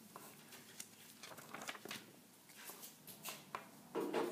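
Pen writing on paper: quiet, short scratchy strokes, with a louder brief sound near the end.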